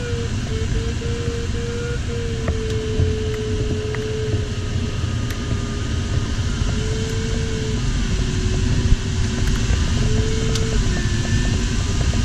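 Steady airflow rush inside an LS4 sailplane's cockpit in flight. Over it runs a variometer's low continuous tone that wavers slightly in pitch and breaks off a few times: the vario signalling sink.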